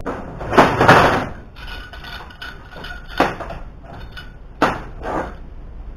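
Metal clanking as a large steel C-clamp is handled and set against steel workpieces: a quick cluster of knocks about a second in, then single knocks near three and five seconds.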